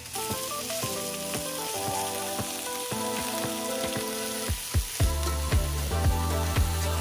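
Cubes of raw pork sizzling in hot oil in a cast-iron skillet as they are laid in and moved with metal tongs. Background music plays under it, with a steady beat of about two a second coming in about five seconds in.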